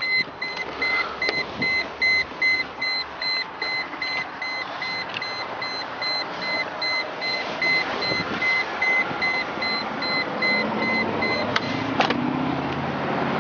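Mercedes-Benz ML320 warning chime beeping about twice a second with the driver's door open and the engine off. It stops near the end as the door is shut with a thump.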